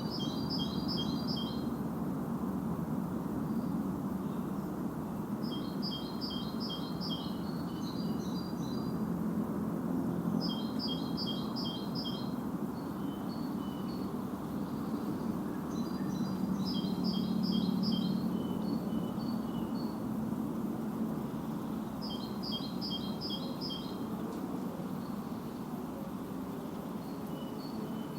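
A songbird singing the same short phrase of rapidly repeated notes over and over, roughly every five to six seconds, over a steady low rushing background noise.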